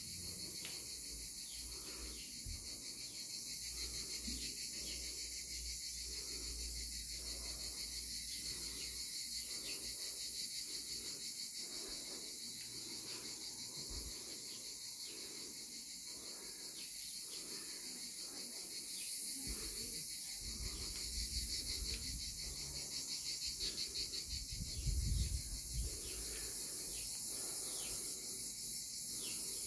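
Steady high-pitched chorus of cicadas outside. Under it are low rumbles and bumps from a phone camera being carried around, with a few louder bumps near the end.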